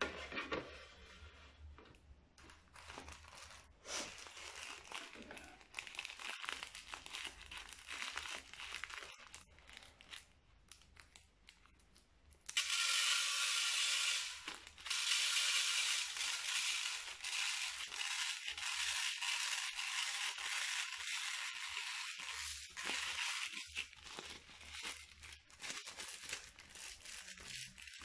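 Plastic piping bags crinkling as they are handled. About halfway through, a stream of small beads pours from a piping bag into a clear plastic bowl: a sudden, loud, steady rattling hiss that eases off near the end.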